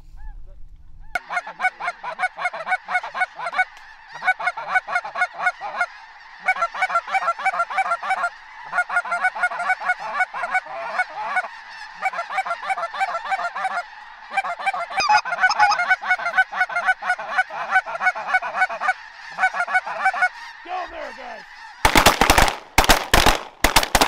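A large flock of snow geese calling overhead, a dense clamour of short, high yelping calls. Near the end a rapid volley of about four or five shotgun shots breaks out.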